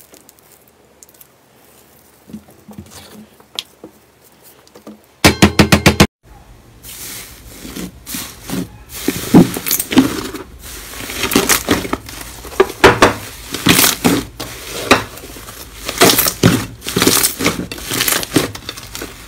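Hands squeezing and kneading slime, with a dense, irregular run of wet crackles and pops from trapped air from about seven seconds in. Before that the squishing is faint, and about five seconds in a burst of about six very loud, evenly spaced pulses cuts in for about a second.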